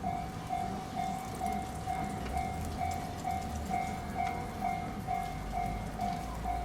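Japanese railway level-crossing warning bell ringing, a steady electronic ding repeating about twice a second, with a low rumble underneath.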